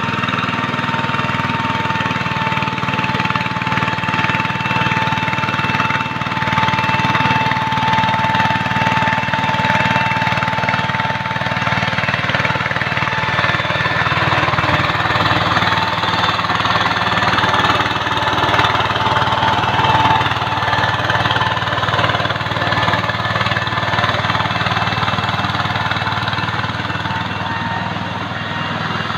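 Two-wheel walking tractor's single-cylinder diesel engine running steadily under load, pulling a mud-leveling board through a flooded paddy on cage wheels.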